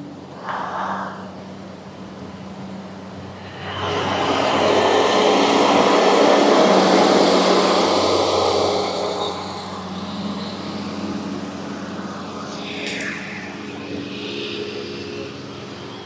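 A road vehicle passing close by: its noise swells sharply about four seconds in and fades away by about ten seconds. Under it runs a steady low engine hum, and there is a sharp click near the end.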